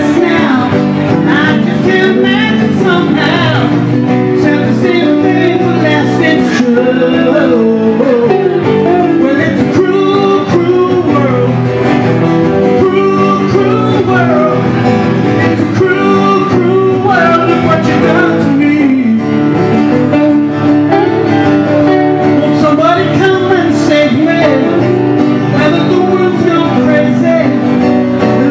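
A man singing live into a microphone while playing an acoustic guitar.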